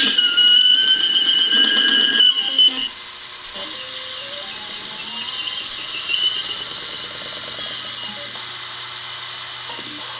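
Stepper motors of a homebuilt Mantis CNC engraver whining as an axis is jogged from a USB joystick: a steady high whine for about the first three seconds that then stops, and a fainter whine briefly around six seconds in.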